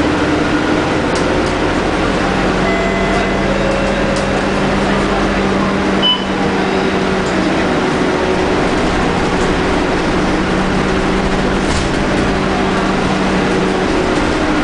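Scania K310UD double-decker bus heard from inside the passenger saloon: its Scania DC9 diesel engine and ZF Ecomat automatic driveline running with a steady hum over road noise. A single short click comes about six seconds in.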